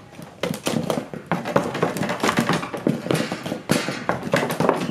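Hands tapping and knocking on the plastic front wheel-arch liners of a Toyota Sienta, one of them lined with aluminium-faced bitumen flashband for sound damping. The knocks come as a quick, irregular run.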